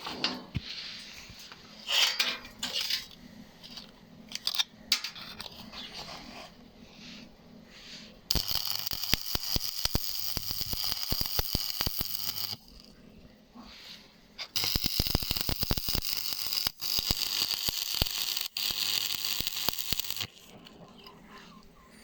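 Stick (shielded metal arc) welding: the arc crackles and sizzles steadily in two runs, the first about four seconds long and the second about six, with a pause of about two seconds between them. Before the first run come irregular scrapes and clinks.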